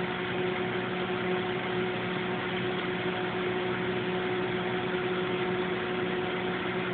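Microwave oven running mid-cycle: a steady hum with fan noise.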